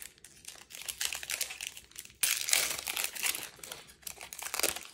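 Foil wrapper of a Yu-Gi-Oh! booster pack crinkling in the hands, then torn open with a sudden loud rip about two seconds in. More crinkling follows as the wrapper is peeled back from the cards.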